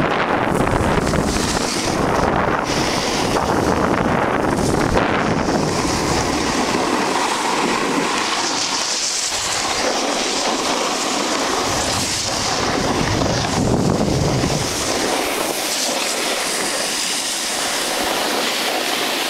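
Wind buffeting the microphone while sliding down a groomed ski slope, over a continuous hiss and scrape of snow under the rider. The wind rumble is heaviest in the first several seconds and then eases, leaving a steadier high snow hiss.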